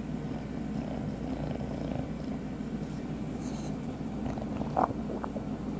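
Bulldog puppy breathing with a steady, low rumbling snuffle as it mouths and licks at its paws and the fabric, with one brief louder sound about five seconds in.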